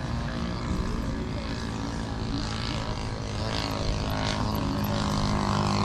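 Piston engine of a radio-controlled scale model airplane flying over the field, a steady engine note that grows louder toward the end.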